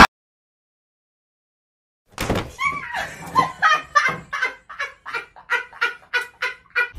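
Silence for about two seconds, then a person laughing hard in quick, evenly repeated bursts, about three a second.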